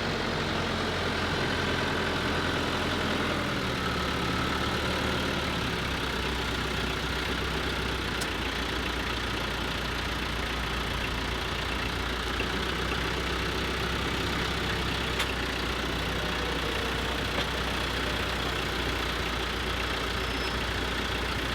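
Tractor engine idling steadily, its low note dropping slightly about three and a half seconds in, with a few faint clicks.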